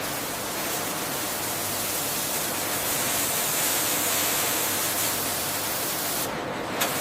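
A steady rushing hiss from factory processing machinery, like rushing air or spraying water.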